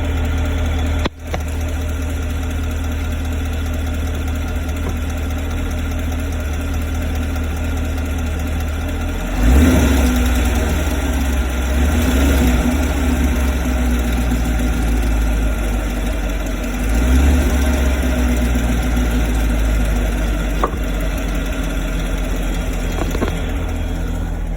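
Chevrolet Camaro 6.2-litre V8 idling warm with a ticking that the owner hears only at operating temperature, coming from low at the rear of the engine on the driver's side near the oil filter and pump; the owner wonders whether it signals impending engine damage. The engine note swells briefly about nine seconds in and again a few seconds later.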